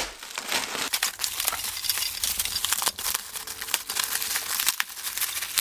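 Packaging being handled and unwrapped: irregular crinkling and rustling with many small crackles throughout.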